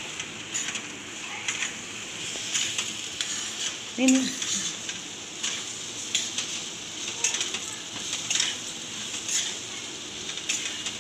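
A steel spoon repeatedly stirring and scraping thick, crumbly moong dal and ground almonds against a steel kadai, over a steady soft sizzle of ghee. This is the slow roasting (bhunai) stage of moong dal halwa on a low flame.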